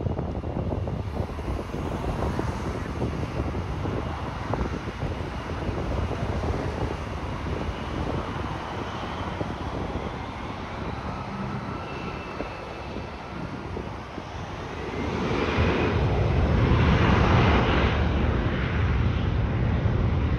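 Jet airliner engines at an airport: a steady rushing roar with a faint, slowly falling whine, growing louder about fifteen seconds in.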